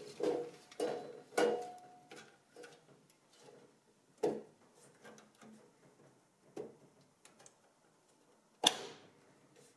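A hard-drive tray being pushed and seated into a server's front drive cage: scattered sharp clicks and knocks, the loudest near the end.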